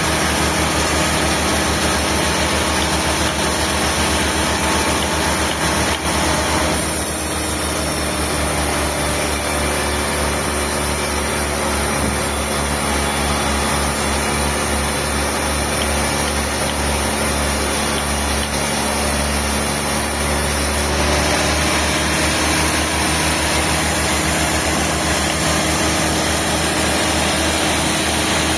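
Sawmill machinery running, a steady loud engine-like drone with a low pulsing hum. The sound changes abruptly about seven seconds in and again about twenty-one seconds in.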